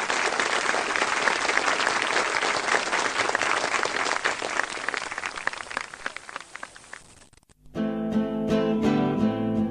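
Applause that fades away, then after a brief gap a guitar starts strumming the song's intro, about three-quarters of the way through.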